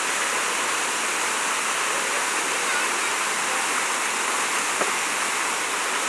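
Water pouring down an artificial rock waterfall into its pool: a steady, even rush of falling and splashing water.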